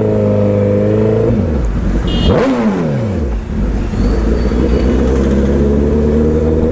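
Honda CBR1000RR Fireblade's inline-four engine heard from the rider's seat. It runs steadily, drops in revs, gives one quick throttle blip about two seconds in, then settles to a low, steady note.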